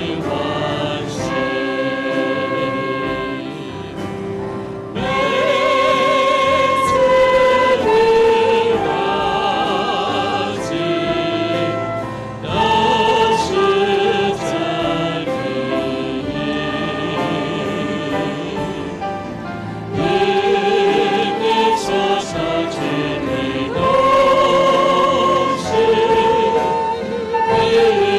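A choir singing a hymn in Chinese, with vibrato on the held notes. The singing swells louder several times as the phrases change.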